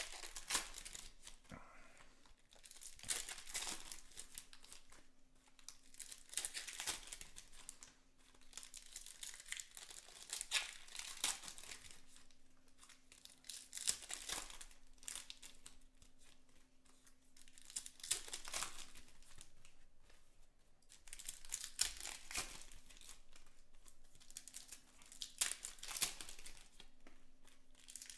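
Trading-card pack wrappers being torn open by hand and crinkled, in repeated bursts every few seconds, with cards handled between them.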